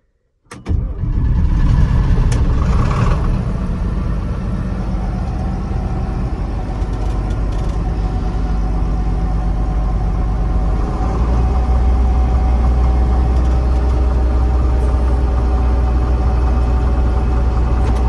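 John Deere 6600 combine running loudly and steadily, heard from inside the cab, coming in suddenly about half a second in. The deep low hum grows heavier about two-thirds of the way through.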